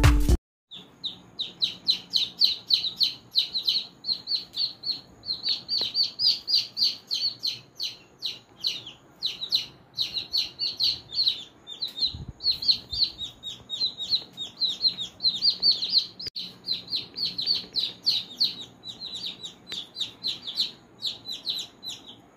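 Young chicks peeping continuously: rapid, high-pitched cheeps, several a second, each one falling in pitch, with brief pauses.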